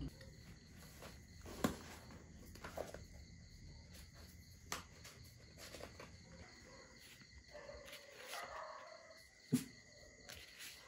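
Faint, steady chirring of crickets with a few sharp knocks; the loudest knocks come near the start and near the end.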